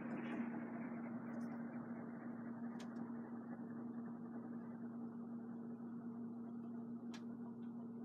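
CanArm CP36P industrial ceiling fan running: a steady motor hum under the whoosh of its blades. The whoosh gradually gets lower and quieter as the fan slows. Two faint ticks, one near the middle and one near the end.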